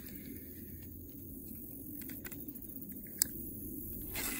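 Quiet handling of fishing gear in a kayak: a few faint clicks, one sharp click about three seconds in and a brief rustle near the end.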